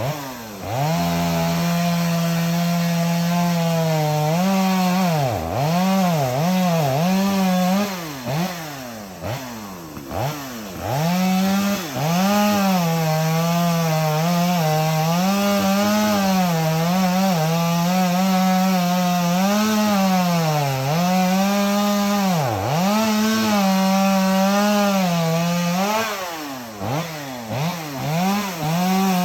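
Chainsaw running at high revs while cutting through a dead tree's trunk to fell it. Its pitch dips sharply and climbs back again several times, mostly in the first third and near the end.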